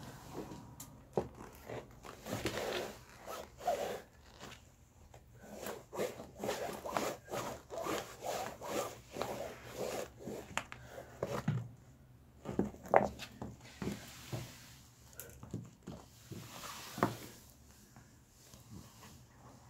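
Boots treading on and rubbing against Adidas Sleek sneakers on a concrete floor: irregular scuffing and scraping of shoe leather and rubber, with a few sharper knocks about halfway through and again later.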